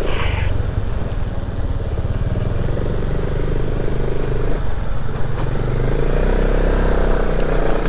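Yamaha XMAX 250 scooter's single-cylinder engine running steadily while being ridden, mixed with wind and road noise. The engine note rises a little and settles again past the middle.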